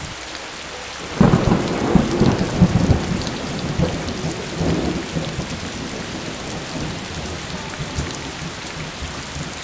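Steady heavy rain, with a long roll of thunder that breaks in about a second in and rumbles away over the next few seconds.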